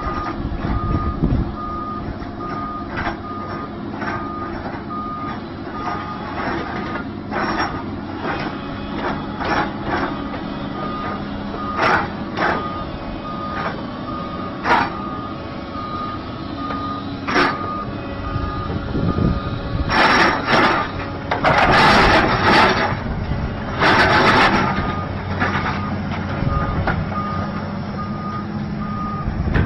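A heavy vehicle's reversing alarm beeps steadily over its running engine, with scattered sharp knocks. Several louder bursts of noise come about two-thirds of the way through.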